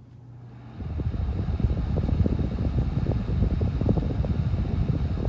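Honeywell HT900 9-inch table fan switched on at high speed: a faint low motor hum, then about a second in the rush of air comes up and holds steady, with a low fluttering rumble.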